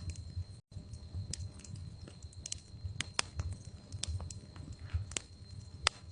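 Wood fire crackling in a fireplace: irregular sharp pops and snaps over a low rumble of the burning, the loudest pop near the end. The sound cuts out completely for a split second just under a second in.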